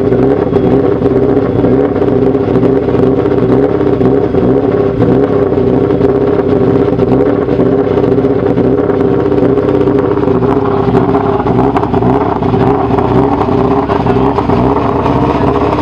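Rally car engine running steadily close to idle, with a slight change in tone about ten seconds in.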